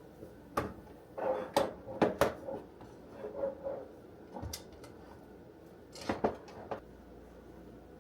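Knocks, clicks and plastic clatter from fitting a pull-out trash can into the cabinet under a sink, in short irregular clusters about a second in, around two to three seconds, and again near six seconds.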